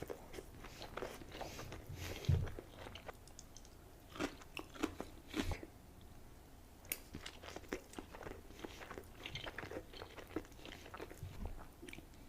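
Close-miked mukbang eating sounds of sushi: a person biting and chewing, with irregular wet smacks and crunchy clicks, and a low bump a little over two seconds in.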